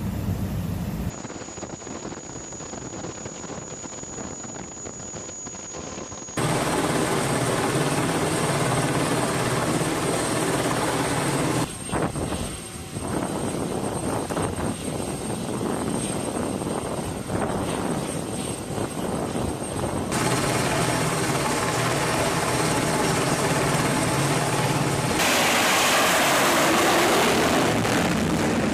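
Aircraft and flight-deck noise from a warship: steady engine and wind noise that changes abruptly every few seconds as the clips cut, growing louder and more hissing in the last few seconds.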